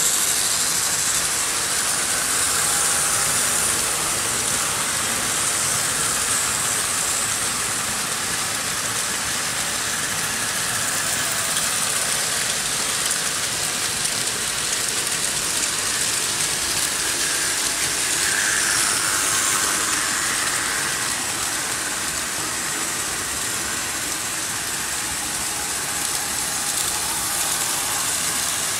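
Several Märklin H0 model trains running at once on metal M-track: a steady, high-pitched running noise of their small electric motors and wheels on the stamped steel rails.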